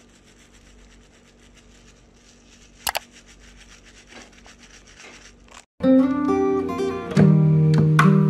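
Faint room noise with one sharp click about three seconds in. Then plucked acoustic guitar music starts abruptly about six seconds in and is the loudest sound.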